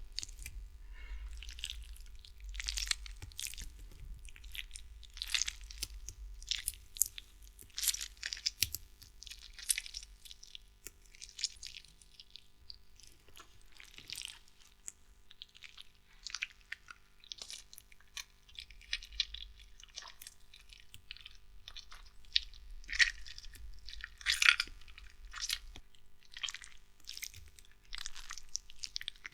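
Gore sound effect of bloody guts: a long run of irregular wet squelches and crunches over a low rumble.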